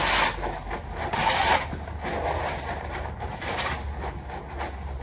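Stable fork scraping and tossing straw bedding across a stall floor: rustling swishes about once a second, the loudest near the start, over a steady low rumble.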